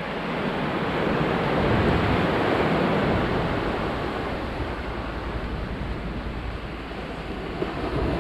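Sea surf washing onto a beach in a steady noise that swells about two seconds in and again near the end, with wind rumbling on the microphone.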